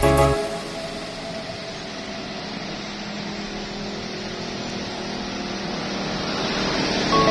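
Steady background noise with a faint low mechanical hum, slowly growing louder; the tail of the background music cuts off just after the start.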